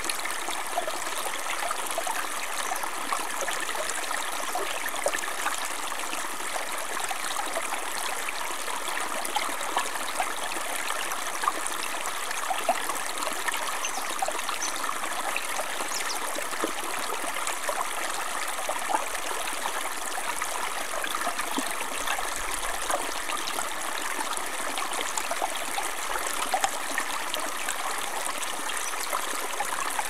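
Small forest stream pouring over a low ledge of rocks into a shallow pool: a steady splashing burble with many small drips and plinks scattered through it.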